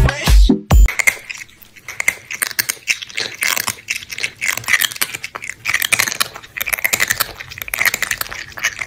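Electronic music cuts off about a second in, then a run of rapid, irregular crunching and chewing: a munching sound effect.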